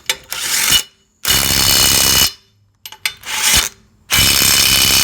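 Dewalt DCF902 12-volt brushless 3/8-inch impact wrench tightening a lug nut, run in four trigger bursts: a short one, then one of about a second, then another short one and another of about a second.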